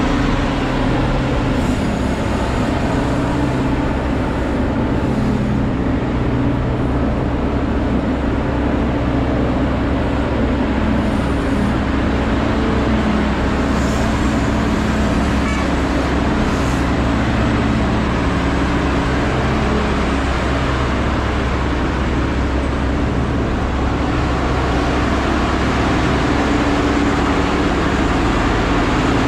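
Liebherr R 9350 mining excavator working close by: its engines run with a steady, low drone as it digs and swings a loaded bucket.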